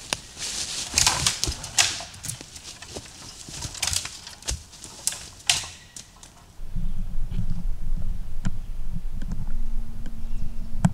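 Irregular footsteps and knocks as a person steps on and off the rungs of a metal ladder tree stand and on the forest floor. About six and a half seconds in, these give way to a steady low rumble of handling noise.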